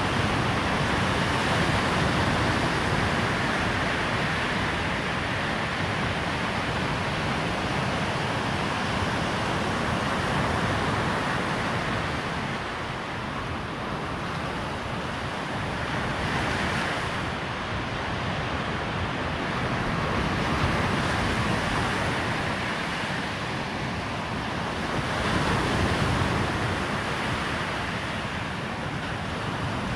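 Waves breaking on a sandy beach: a steady wash of surf that swells and eases every few seconds.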